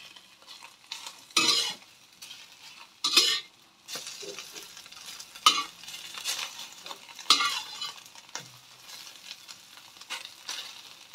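Metal spatula scraping and knocking against a stainless steel wok while pieces of chive omelette are turned: about five short scrapes a couple of seconds apart, over the low sizzle of egg frying in oil.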